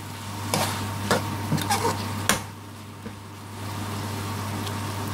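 A metal spoon stirring chicken pieces in a metal pan, with several scrapes and clinks against the pan in the first couple of seconds, then a steady low sizzle. A steady low hum runs underneath.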